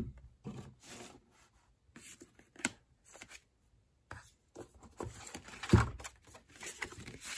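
Hands unpacking a wooden watch box, lifting its lid and flipping up a paper booklet and card: scattered rustles, paper crinkling and light knocks, the loudest a low thump about six seconds in.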